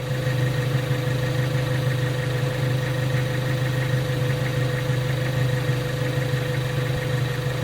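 Ford Focus ST engine idling steadily, a constant low hum with a steady higher tone over it.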